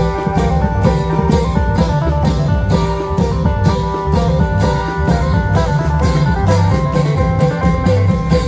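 Isan klong yao band playing: a plucked-lute (phin) melody over a steady, dense beat of long drums and percussion.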